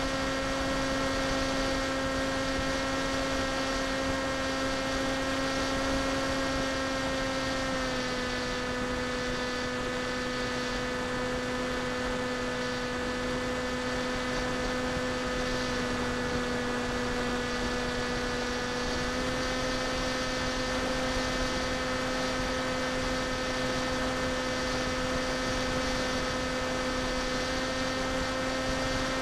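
Electric pusher motor and propeller of an FPV foam flying wing, heard from the onboard camera: a steady droning whine with many overtones over a hiss of air. Its pitch drops slightly about eight seconds in and rises again after about nineteen seconds, following small changes in throttle.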